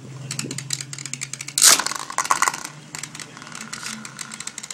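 Two Beyblade spinning tops spinning and clattering against each other and the wall of a plastic basin, with rapid clicks throughout and one loud clash about a second and a half in.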